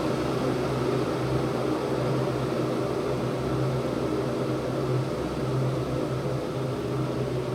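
Electric water-heating machine running with a steady hum as the water heats toward the boil.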